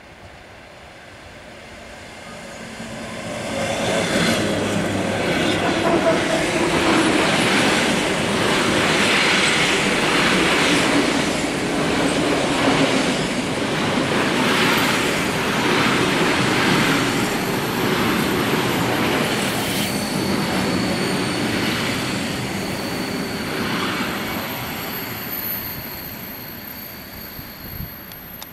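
ED4M DC electric multiple unit running past on the rails: the sound builds, stays loud with a repeated clatter of wheels over rail joints, then dies away as the train draws off. A thin high tone runs through the later part.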